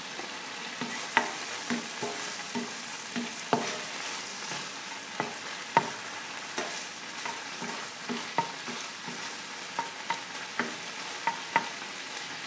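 Diced bacon sizzling in a frying pan with a steady hiss while a spatula stirs it, knocking against the pan in irregular sharp clicks, about one or two a second, some ringing briefly.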